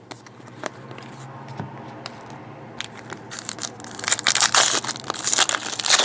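Crinkly foil trading-card pack wrapper being torn open and crumpled, with a few light handling ticks at first and the tearing and crinkling growing loud about four seconds in.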